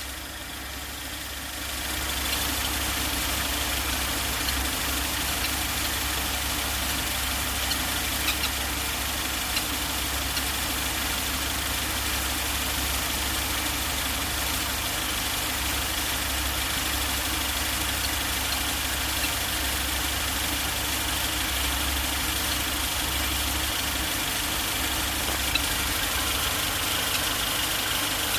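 Four-cylinder gasoline car engine idling steadily, with a few sharp ticks along the way; the engine carries an abnormal noise (異音) whose source is in question.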